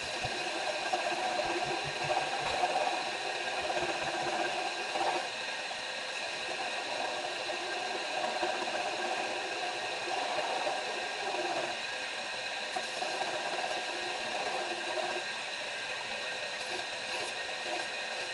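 Electric grinder running steadily while steel is dressed on it, with an uneven scratchy grinding sound that comes and goes through the first part and eases off later.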